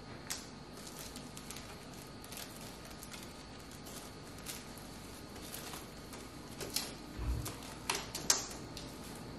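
Light crinkling and rustling of metallic foil tassels and foil tablecloth being handled, with scattered small clicks that grow louder and busier in the second half. A soft low bump comes about two-thirds of the way through, and a sharp click comes near the end.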